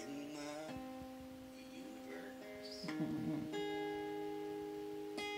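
Acoustic guitar playing slow, ringing chords, with a fresh strum about three seconds in; the playing stops near the end.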